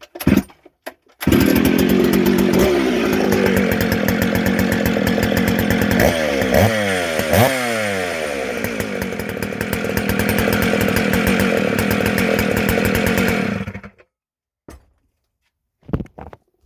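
Rebuilt Dolmar 153 two-stroke chainsaw starting about a second in and running. It is revved up twice about six to seven seconds in, then shut off suddenly near the end. Its ignition is set a couple of degrees advanced.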